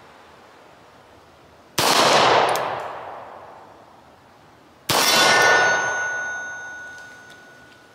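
Two 9mm pistol shots from a Beretta 92FS about three seconds apart, each with a long echoing tail. After the second shot a steel target rings with a steady tone that slowly fades.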